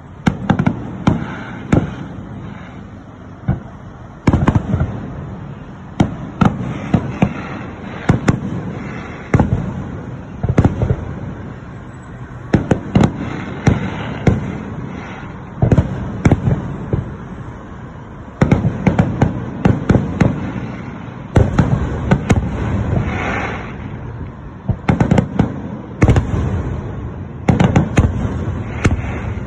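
Fireworks display: aerial shells bursting one after another, many sharp bangs often in quick clusters, with booming rumble carrying between them.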